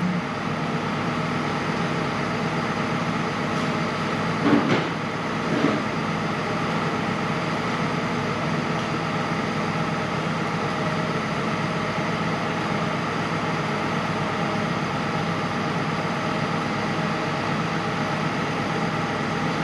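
A steady mechanical hum, with a couple of brief metal clunks about four and a half and six seconds in as the starter motor is worked out of the engine bay.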